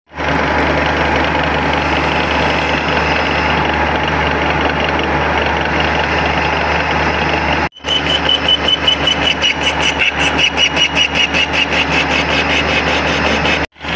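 Metal lathe cutting steel, with the spindle's steady low hum. First a drill bit bores into the end of the bar with even cutting noise. About eight seconds in, a carbide insert facing the end gives a high-pitched squeal that pulses about four to five times a second: the loud cutting sound that marks the high-hardness zone of the steel.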